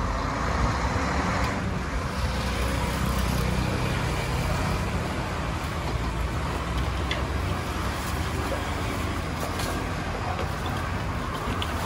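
Road traffic noise: a steady low rumble of passing vehicles, with a few faint clicks on top.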